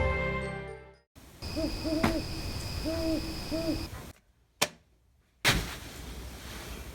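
Owl hooting: about five short, arched hoots over two and a half seconds, with a steady high-pitched whine behind them. Background music fades out just before, and a single sharp click comes about a second after the hoots stop.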